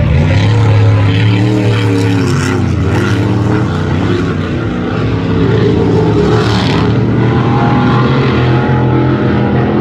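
Racing powerboat engines running hard, their pitch dipping and rising as a boat swings around a turn buoy. From about seven seconds in, more than one engine is heard at once at different pitches.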